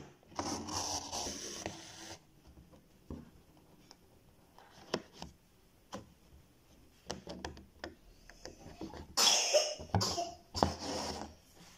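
Embroidery thread being drawn through fabric stretched in a hoop while working backstitch: a rustling pull in the first two seconds and a louder one about nine seconds in, with small scattered taps of needle and fingers on the fabric between.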